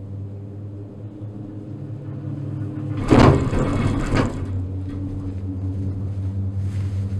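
Gondola lift cabin riding down its haul rope with a steady low hum. About three seconds in comes a loud rumbling clatter lasting just over a second, typical of the cabin's grip rolling over the sheave wheels on a lift tower.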